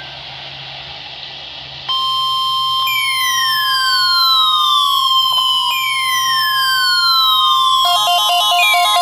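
NOAA Weather Radio 1050 Hz warning alarm tone: after about two seconds of radio hiss, a steady high tone comes on and holds. From about three seconds in, falling siren-like sweeps repeat over it every few seconds, and near the end a rapidly alternating electronic alarm pattern starts.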